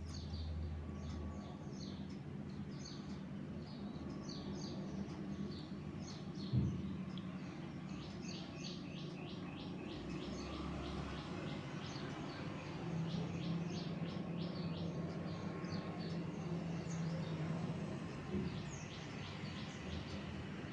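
Birds chirping in quick runs of short, high calls, over the faint rubbing and pressing of hands kneading stiff sorghum-flour dough on a stone counter. A single thump comes about a third of the way through.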